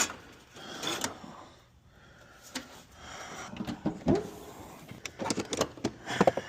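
Scattered clicks, knocks and rattles of hands and tools handling plastic and metal parts in a car's engine bay, with a quick run of clicks near the end.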